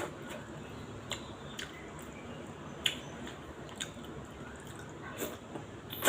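A person eating: soft wet chewing and squishing with a scattered series of light, sharp clicks, roughly one a second.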